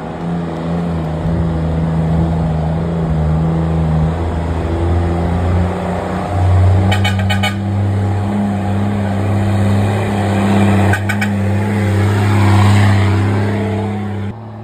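Ford Cargo 1722 truck's turbo-diesel engine running through a straight-pipe exhaust, its note stepping up in pitch about halfway through as it pulls harder, with a rising hiss near the end.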